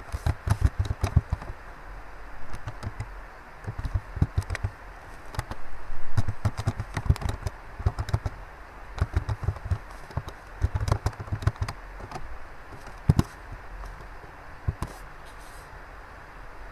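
Typing on a computer keyboard: quick runs of keystroke clicks broken by short pauses, over a steady low hiss.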